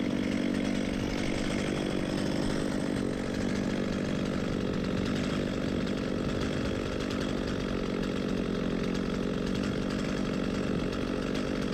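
Chainsaw running at full throttle, cutting steadily into a tree trunk during felling.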